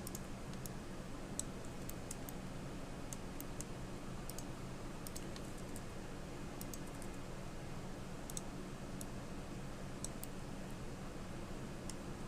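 Scattered, irregular clicks of a computer mouse and keyboard being worked, over a steady low hum.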